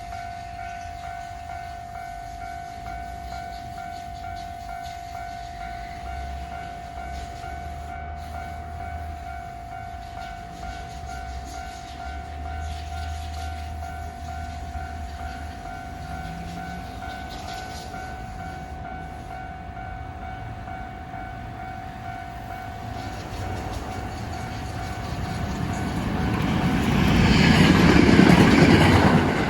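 A level-crossing alarm rings steadily and rapidly while a Hankyu electric train approaches. The train grows louder from about 23 seconds in and rushes through the crossing near the end, loudest about 28 seconds in.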